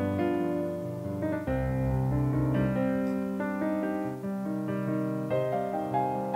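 Background piano music, a slow run of notes and chords.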